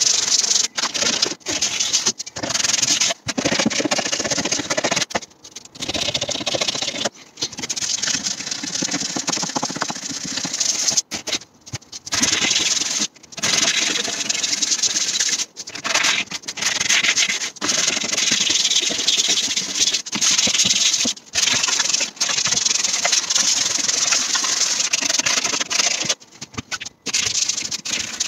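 Sandpaper rubbing by hand along the grooves of a knotty wooden cabinet door panel: continuous scratchy rubbing strokes broken by short pauses every second or two.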